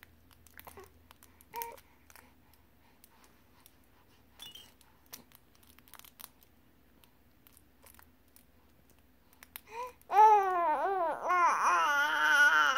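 Young baby vocalising. After about ten seconds of near quiet with a few faint clicks, she starts a loud, long run of high, wavering sounds that rise and fall in pitch.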